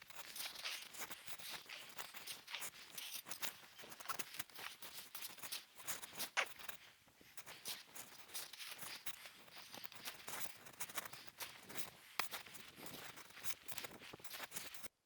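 Dense, irregular crackling and scraping rustle close to the microphone, handling noise from a camera left recording by mistake. It cuts off abruptly just before the end.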